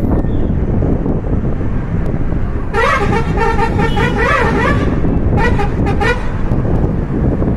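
Steady rumble of a moving vehicle's engine and road noise. Over it, a vehicle's musical horn plays a warbling tune of shifting pitch for about two seconds, then sounds again more briefly about a second later.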